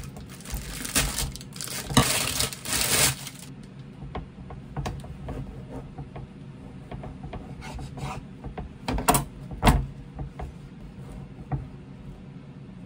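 Plastic bread bag crinkling loudly as it is snipped open with scissors and pulled off a square loaf, then a serrated bread knife rasping as it saws down through the loaf's crust on a wooden cutting board, with a couple of sharp knocks a little after nine seconds.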